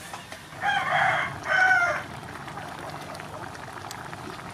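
A rooster crowing once, a two-part call lasting about a second and a half that starts just over half a second in.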